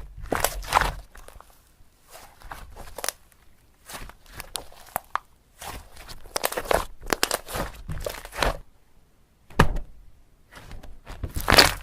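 Slime being squeezed and pressed by hand, making irregular bursts of crackling, sticky clicks with short pauses between them.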